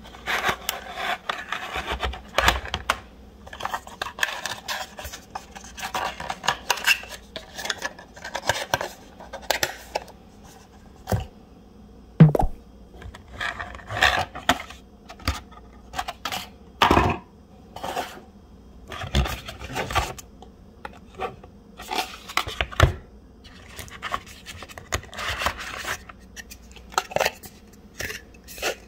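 Cardboard box and clear plastic packaging of a power bank being handled: irregular rubbing, scraping and tapping as inserts and a plastic tray are lifted out, with a sharp knock about twelve seconds in.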